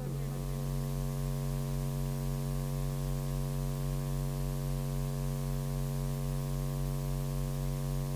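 Steady electrical mains hum and buzz on the commentary audio feed, one unchanging tone with many overtones.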